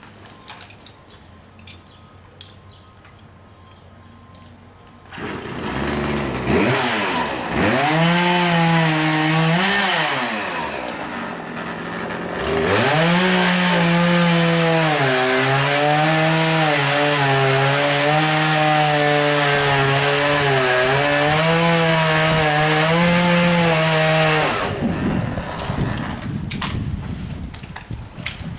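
Two-stroke chainsaw running at high revs, cutting through a tree limb. It comes on about five seconds in, its pitch dips and recovers as it works, and it drops away about twenty-five seconds in.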